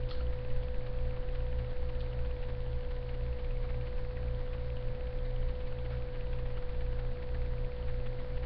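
A steady electrical hum: one unchanging mid-pitched tone over a low, wavering rumble, picked up by a webcam's microphone.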